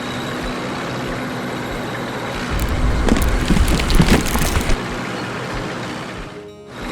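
Heavy vehicle engine running, swelling louder and rougher for about two seconds in the middle before settling back to a steady drone.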